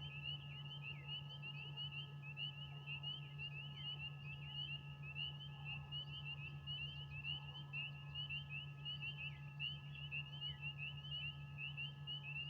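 A dense chorus of frogs chirping: many short, high calls overlapping without pause. A steady low hum runs underneath.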